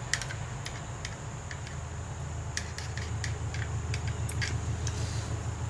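Light, irregular metallic clicks from a pump oil can being worked to squirt transmission fluid onto a spool valve, over a steady low hum.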